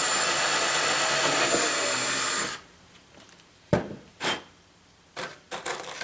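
Ryobi cordless drill/driver running steadily with a thin high motor whine as it drives a screw into a pine block, stopping abruptly about two and a half seconds in. A few short knocks follow as the drill is set down on the workbench.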